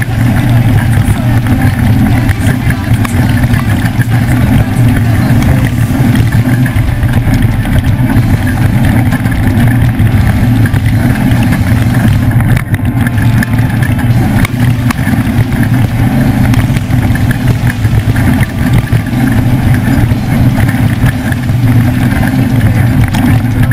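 Leaf-sprung Ford desert race truck running at speed: a loud, steady engine drone with a low hum, mixed with rough road noise.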